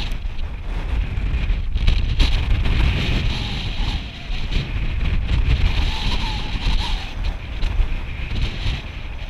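Wind buffeting an action camera's microphone, a steady low rumble with hiss over it.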